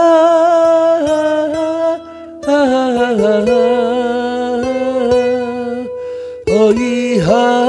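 A man singing a slow Korean trot ballad in long held, wavering notes over fingerpicked acoustic guitar. The voice breaks off briefly twice, about two seconds in and again near six seconds.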